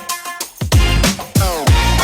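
Electronic dance music with heavy bass kicks and synth lines, a drum-and-bass or dubstep style track.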